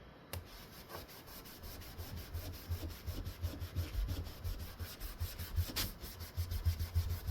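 A Hunter Stratford ceiling fan blade being scrubbed with a cleaning wipe in quick back-and-forth strokes, several a second. It starts softly and gets louder after about a second and a half.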